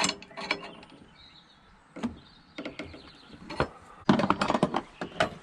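Sharp metallic clicks and clinks of hand tools on the strut brace's nuts and fittings, scattered at first, then a quick run of many clicks near the end.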